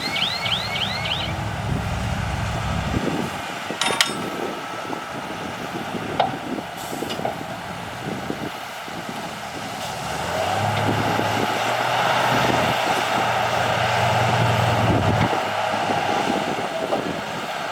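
Diesel engine of heavy earthmoving machinery running, with a sharp metallic knock about four seconds in. From about ten seconds in the engine revs up and runs louder under load, then eases slightly near the end.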